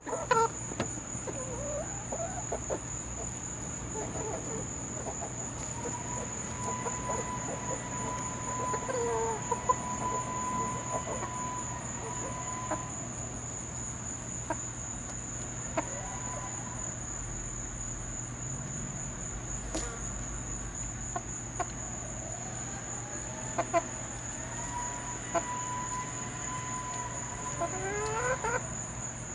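Free-ranging chickens calling and clucking, with two long, drawn-out calls, one from about 6 to 12 seconds and another from about 25 to 28 seconds, and short rising calls near the end. Insects drone steadily at a high pitch behind them.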